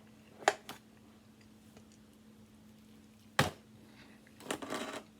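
Utensils clicking and knocking against a pan of food: two quick clicks about half a second in, a sharper knock a little after three seconds, then a brief rattling scrape near the end.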